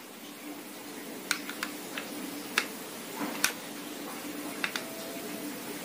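About seven sharp, scattered clicks and taps of small parts being handled while a pump air rifle is taken apart, over a faint steady hum.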